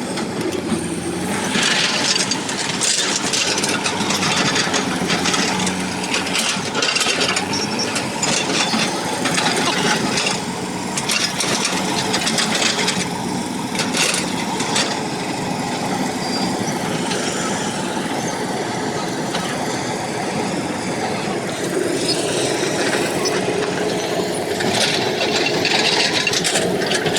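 Excavator's diesel engine running steadily, with repeated short scraping and knocking sounds.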